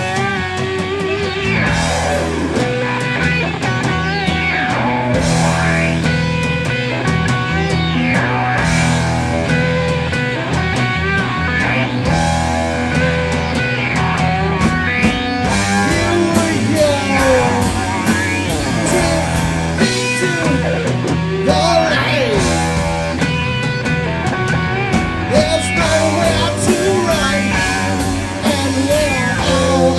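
Heavy rock band playing: distorted electric guitar with bending lead lines over bass guitar and drums with cymbal hits.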